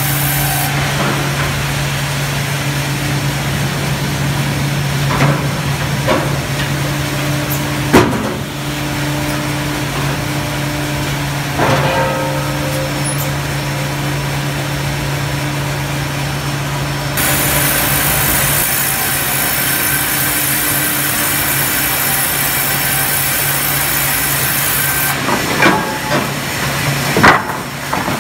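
LBL Brenta sawmill bandsaw line and hydraulic carriage running with a steady low hum. Several loud sharp knocks and bangs stand out, the loudest about 8 seconds in and twice near the end. A higher hiss joins for several seconds in the second half.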